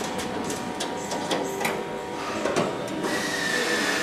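A few light metallic clicks and taps on the aircraft's aluminium fuselage structure, then about three seconds in a power tool starts with a steady high whine and hiss.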